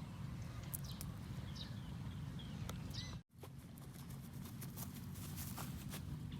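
Faint outdoor background: a steady low rumble with a few short chirps and scattered light taps. The sound drops out completely for an instant a little after three seconds in.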